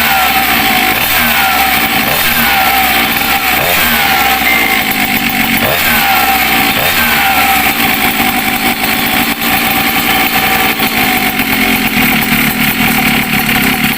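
Small two-stroke scooter engine (71cc) running through an MB Racing Pipe tuned expansion pipe fitted with its arrester. For the first half it is blipped about once a second, each rev falling back in pitch, then it runs more steadily.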